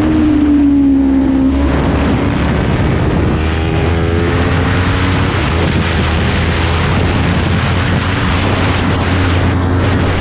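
Kawasaki Ninja 400's parallel-twin engine running as the motorcycle is ridden, its pitch climbing between about three and five seconds in as it accelerates, under a heavy rush of wind noise.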